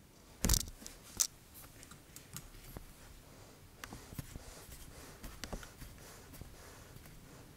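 Handling noise as a gold pocket watch is picked up off paper and held in the fingers: two sharp knocks about half a second and a second in, then scattered, irregular lighter clicks and taps.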